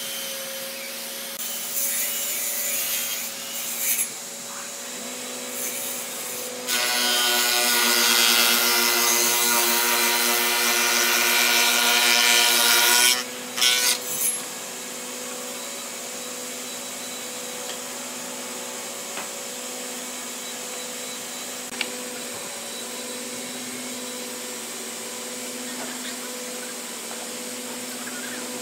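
Spindle moulder (wood shaper) running with a steady hum, its cutter head cutting into a red hardwood plank: a short louder cut a couple of seconds in, then a long loud cut from about 7 to 13 seconds in, after which the machine runs on unloaded.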